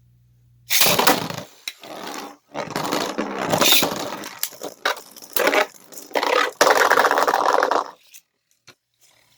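Beyblade spinning tops, one of them a Slash Valkyrie, launched into a plastic stadium and spinning, clashing and scraping against each other and the stadium walls for several seconds, stopping about eight seconds in.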